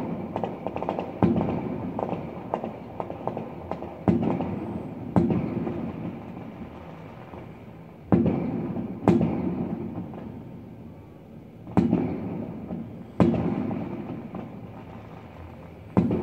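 Distant aerial fireworks shells bursting: about nine sharp booms spaced one to three seconds apart, each trailing off in a long rolling echo, with a patter of smaller crackles near the start.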